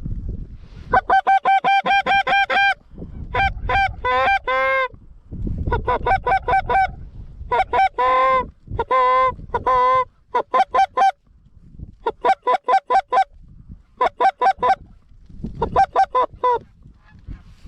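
Goose call blown close by in about nine quick runs of short honks and clucks, with brief pauses between, calling to incoming geese.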